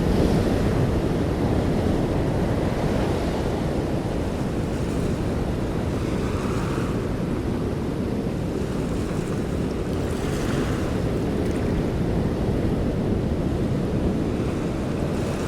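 Open-sea ambience from a boat: a steady low rush of wind and waves, with a few brief surges of splashing wash.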